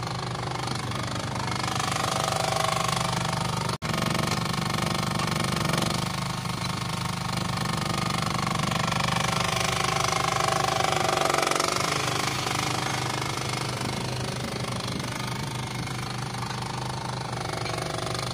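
Mini excavator's small engine running steadily with a rapid low beat, and a hydraulic whine that rises and falls in pitch as the boom and arm are moved.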